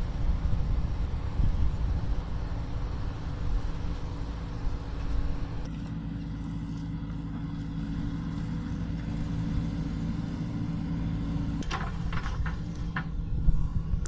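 JCB backhoe loader's diesel engine running steadily as the machine moves over a loose gravel mound, with a few sharp knocks near the end.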